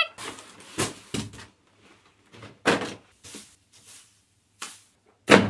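A string of short knocks and rustles as boxed Christmas decorations are handled and set down on the floor, about eight in all, the loudest near the end.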